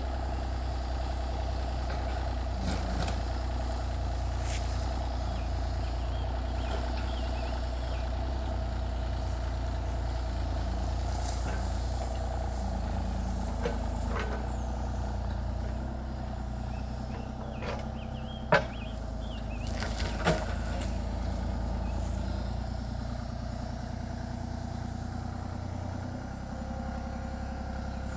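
Kubota KX033-4 compact excavator's diesel engine running steadily, with a few sharp knocks from about halfway through, the loudest two roughly two-thirds of the way in.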